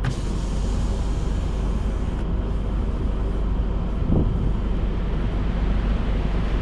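Steady low rumble of a car running, heard inside the cabin, with a brief louder low sound about four seconds in.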